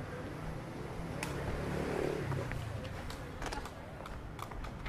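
City street ambience: a steady hum of traffic and people, swelling a little about two seconds in, with scattered sharp clicks and knocks.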